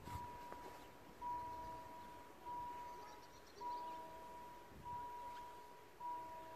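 Railway level-crossing warning bell ringing, a single clear ding repeated about every 1.2 seconds with each stroke fading before the next, signalling that the crossing is closing for an approaching train.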